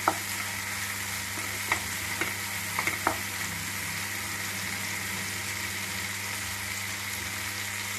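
Chopped tomatoes, onion and green chillies sizzling steadily in mustard oil in a nonstick kadhai, softening on the gas. A few light clicks of the spatula against the pan come in the first three seconds, over a steady low hum.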